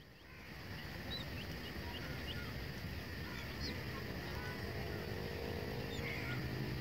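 Domestic chick peeping: short, high chirps every second or so, faint over a steady low rumble of background noise that swells up in the first second.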